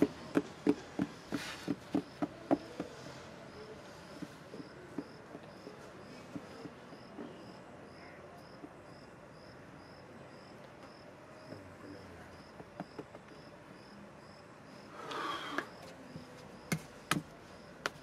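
Hands slapping and patting down moulding sand in a wooden casting flask, a quick run of sharp pats over the first few seconds. After that it is quieter, with a faint high chirp repeating about twice a second, a short rustle, and a few sharp knocks near the end.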